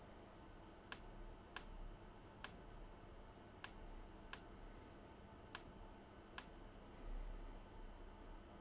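Faint single clicks on a laptop, seven of them at uneven intervals, as it is operated; otherwise near silence.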